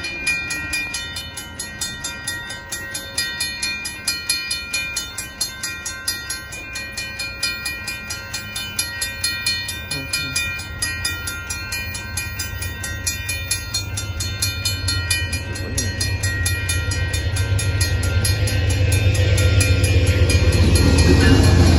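Railroad crossing bell ringing in rapid, steady strokes at a grade crossing with the signals active. From about two-thirds of the way through, the low rumble of the approaching Amtrak train grows steadily louder beneath it.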